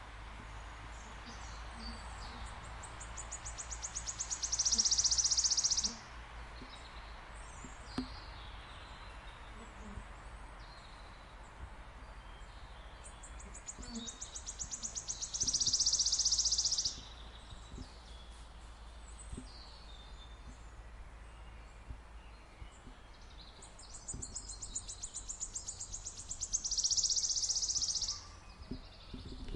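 Wigeons calling in three high-pitched bouts, each starting as a run of rapid pulses that quickens into a loud whistling burst of a couple of seconds, over a steady low background rumble.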